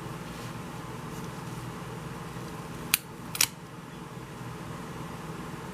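Two short sharp clicks about half a second apart, from card pieces being handled and pressed down on a craft desk, over a steady background hum.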